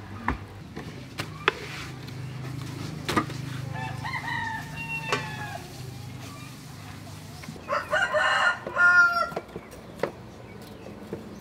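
A rooster crowing loudly, one long call about eight seconds in, with fainter chicken calls a few seconds earlier and a few sharp clicks near the start.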